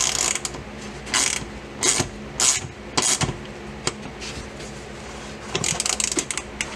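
Hand ratchet clicking in short bursts of strokes, about five spaced strokes and then a quick cluster near the end, as a shoulder bolt on the driveshaft carrier is tightened.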